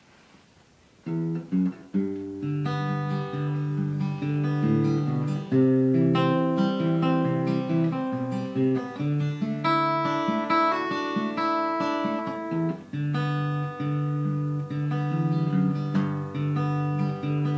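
Acoustic guitar playing an instrumental intro through G, C and D chords, with single notes picked among the chords. It starts about a second in.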